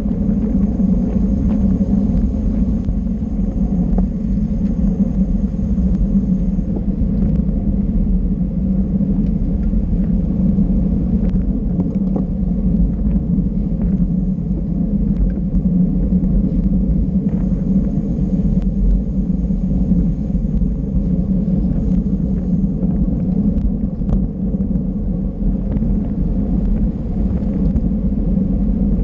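Steady low wind rumble on the microphone of a camera carried on a racing bicycle, with road and tyre noise under it, unbroken while riding.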